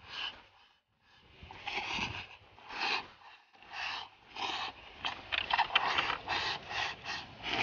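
Close-miked eating: a person gobbling rice with chopped chili straight from a hollowed pumpkin, face in the bowl, in a series of short noisy slurps and mouthfuls. They come about one a second at first, then faster, around three a second, in the second half.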